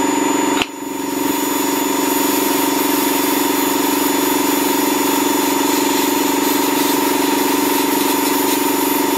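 Sandblasting cabinet running: a steady hiss of blast air and abrasive on an aluminium model-engine casting, over the steady hum of a vacuum cleaner drawing off the dust. The sound dips briefly just under a second in, then comes back.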